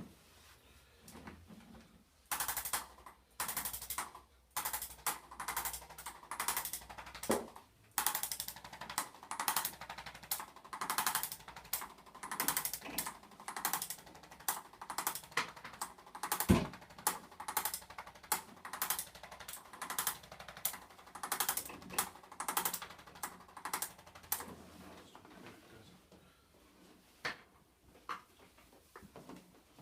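A rapid, uneven run of sharp taps, about two or three a second, that stops a few seconds before the end, with one heavier thump about sixteen seconds in.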